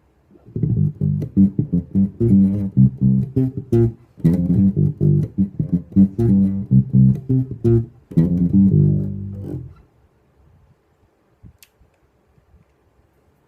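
Aria Pro II TSB-650 electric bass guitar playing a line of quick separate notes, with a short break about four seconds in. It ends on a longer held note near ten seconds, then falls quiet apart from one faint click.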